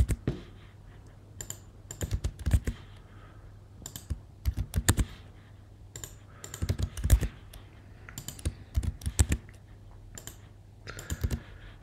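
Computer keyboard keys pressed in short quick clusters about every two seconds: copy-and-paste keyboard shortcuts.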